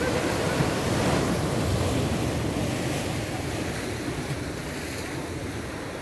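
Sea surf breaking and washing over shoreline rocks, a steady rush of water that is loudest in the first couple of seconds and then eases, with wind on the microphone.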